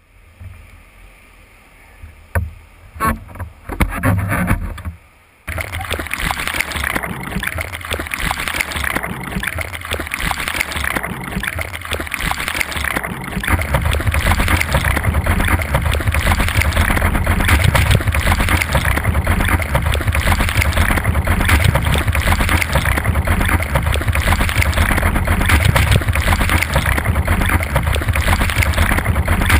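Surf water rushing and splashing close to a camera at water level in choppy storm waves, loud and dense, with an even swell about every two seconds. It comes in suddenly about five seconds in after a few knocks, and gets deeper and heavier about halfway through.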